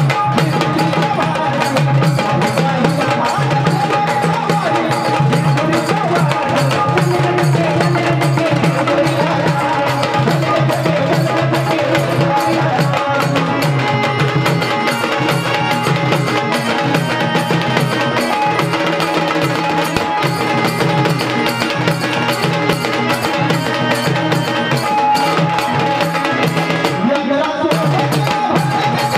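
Instrumental Marathi gondhal folk music: a sambal pair of drums and a large stick-beaten drum play a steady, driving beat under held melodic tones.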